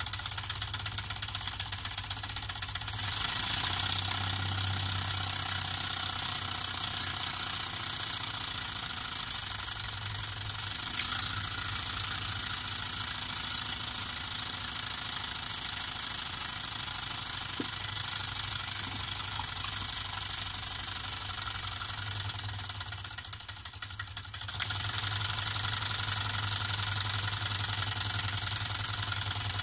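LEGO Technic pneumatic engine running on compressed air: a steady hiss of air through the valves and cylinders with a low rapid mechanical chatter as the propeller spins. About three quarters of the way through it drops off for a couple of seconds, then picks up again with a click.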